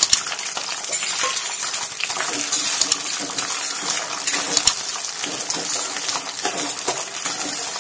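Cluster beans and potato pieces sizzling in hot oil in a kadai, while a steel ladle stirs them and clinks and scrapes against the pan many times.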